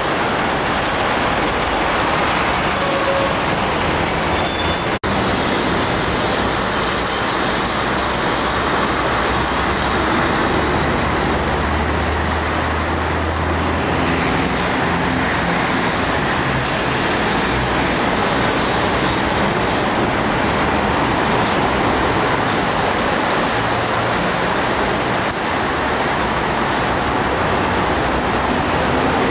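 Steady city street traffic noise, with buses and cars running. The sound breaks off for an instant about five seconds in, and a deeper engine hum swells for a couple of seconds about twelve seconds in.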